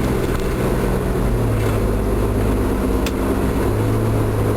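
Road noise and engine drone inside the cabin of a Chevrolet S-10 Blazer at expressway speed, with the windows up and the interior stripped of insulation. The sound is a steady, loud low hum with the engine's tone under it.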